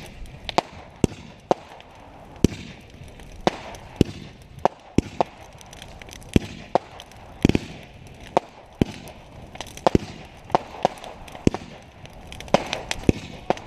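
Fireworks going off in a rapid, irregular run of sharp bangs, about one or two a second, with rough crackle between them.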